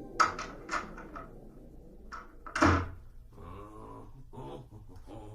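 A door being opened and shut: a quick run of sharp clicks and knocks from the latch and handle in the first second or so, then a heavier thud about two and a half seconds in.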